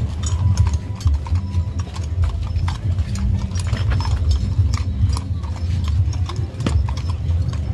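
Horses' hooves clip-clopping in an irregular run of knocks, over a steady low rumble.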